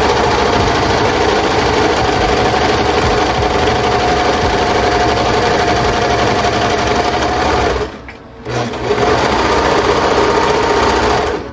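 Brother 1034D overlocker (serger) running steadily at speed while stitching a test seam on scratch fabric, pausing for about half a second about eight seconds in, then running again until it stops abruptly.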